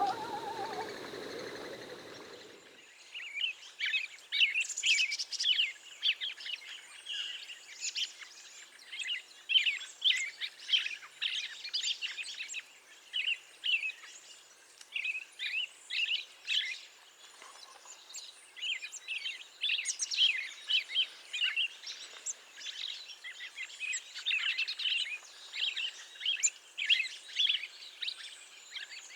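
Songbirds chirping and singing, many quick overlapping notes from several birds at once. In the first two seconds, music fades out before the birdsong comes in.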